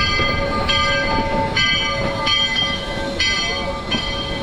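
Steam locomotive's bell ringing steadily, about six strokes, a little under one a second, each ring cut off by the next, over the low rumble of the train.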